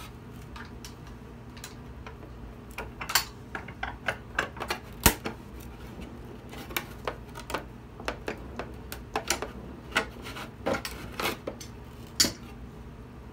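Bar clamps being released and lifted off a cello's glued rib: irregular sharp clicks and clacks as the clamps open and knock against the wooden body, the loudest about five seconds in.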